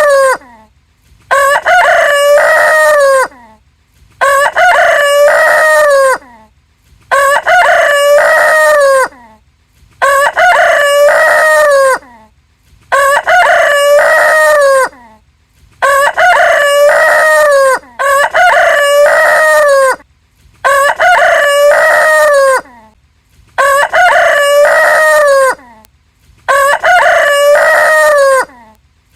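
Rooster crowing, one loud cock-a-doodle-doo of about two seconds every three seconds or so, each crow the same shape, with short silences between.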